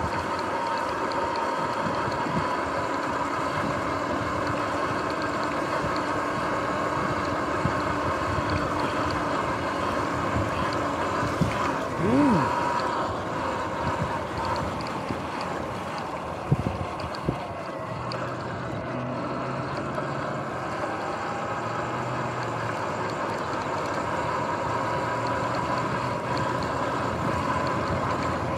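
Sur-Ron X electric dirt bike ridden over rough grassy ground: the steady high whine of its electric motor over a rushing, rumbling ride noise, with a few sharp knocks from bumps partway through.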